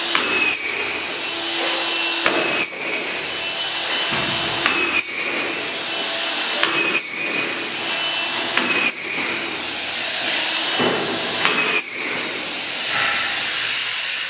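Cordless autofeed screw gun running continuously while driving self-tapping screws one after another into two stacked steel drywall track profiles, fastening them together. A sharp click and brief whine recur about every two seconds as each screw is fed and driven into the metal.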